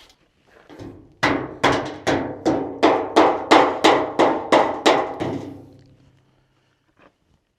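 A hammer striking metal about a dozen times, nearly three blows a second, each blow ringing. A ring hangs on for a moment after the last blow.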